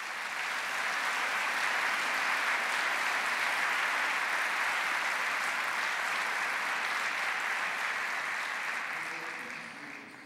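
Audience applauding in a large lecture hall, a steady round of clapping that fades away in the last second or two.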